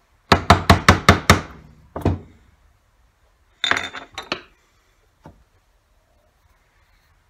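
Claw hammer striking a chisel cutting into a wooden board: six quick strikes in the first second and a half, then one more. Around four seconds in, light clinks as the hammer and steel chisels are set down and picked up.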